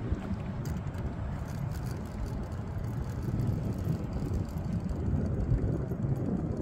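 Steady low rumble of wind buffeting the microphone, with water lapping against a plastic fishing kayak's hull as it moves across choppy water.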